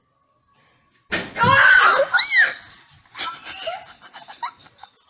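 Girls shrieking and squealing in high, swooping pitches, breaking out suddenly about a second in after near quiet. The shrieks are loudest over the next second and a half, then trail off into shorter, quieter vocal sounds.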